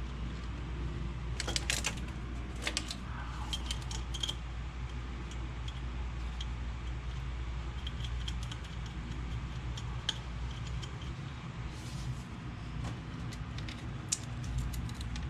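Light metallic clinks and jangles from metal fittings and tools being handled and fitted, in short clusters over a steady low hum.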